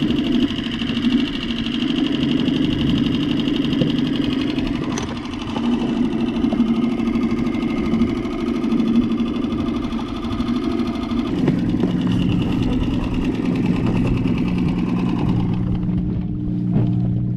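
Small boat outboard motor running steadily at trolling speed, with wind and water hiss. The motor's pitch shifts about two-thirds of the way through, as its speed changes.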